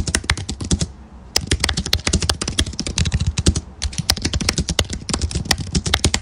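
Fast typing on a computer keyboard: quick runs of key clicks with a couple of brief pauses.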